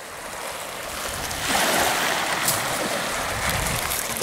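Small waves washing and breaking onto a pebbly shoreline, a steady rushing noise that builds as it fades in and grows louder about a second and a half in.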